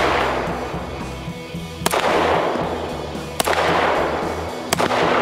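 Beretta 92FS 9mm pistol firing three single shots about a second and a half apart, the first about two seconds in and the last near the end, each followed by a long echo that fades away. Background banjo music plays underneath.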